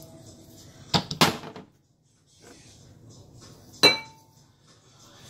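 Two sharp knocks of kitchenware about a second in, trailing into a brief rattle, then a single clink of a glass jar that rings on for a moment.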